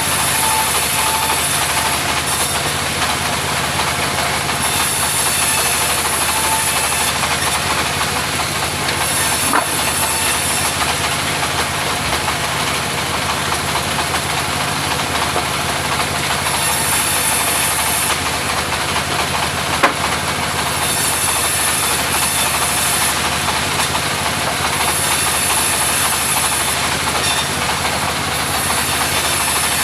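Engine-driven mobile sawmill running steadily, with a high hiss that rises and falls away every few seconds. Two sharp knocks stand out, about ten and twenty seconds in.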